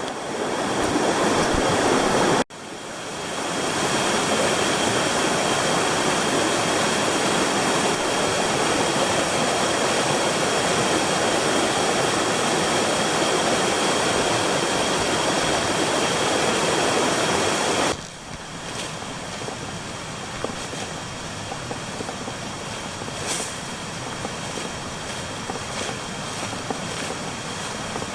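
Rushing water of a mountain stream, a steady even rush of noise. It drops out for an instant about two seconds in, and becomes quieter about two-thirds of the way through, as at a change of shot.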